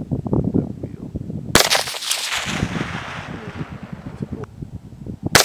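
Two rifle shots about four seconds apart, the first about a second and a half in and the second right at the end, each a sharp crack followed by a long echoing tail.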